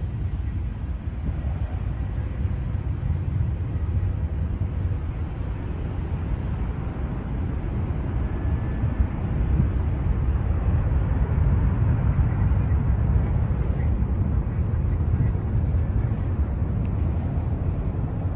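Low, steady rumble of an Airbus A380's four jet engines during takeoff, growing a little louder about halfway through.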